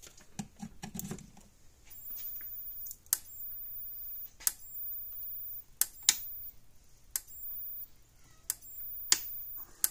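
A Power Wizard PW18000 fence energizer is running and firing a sharp snap about every second and a half, over a low hum and a faint, very high whine between pulses. The steady pulsing sounds healthy: the unit is working after repair. There are handling clicks and knocks in the first second or so.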